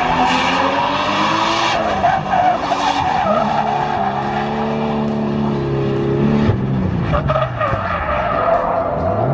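Turbocharged Nissan Skyline R32 drifting, its engine held at high revs and rising and falling in pitch with the throttle over the steady screech of the rear tyres sliding. About six and a half seconds in the engine note breaks and falls away, then climbs again at the end.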